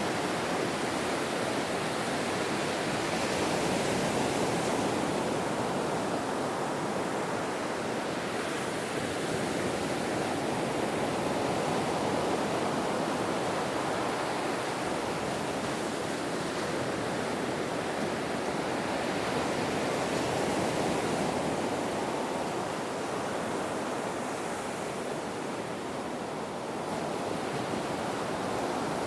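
Ocean waves: a steady rushing wash of surf that slowly swells and eases every several seconds.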